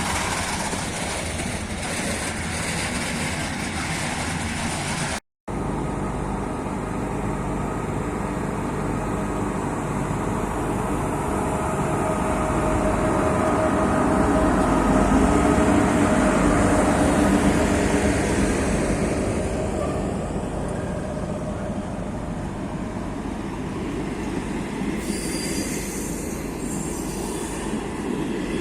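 A train rolling past, with a steady rumble of wheels and running gear and faint steady tones over it. It grows louder to a peak about halfway through, then eases off. There is a brief dropout of sound about five seconds in.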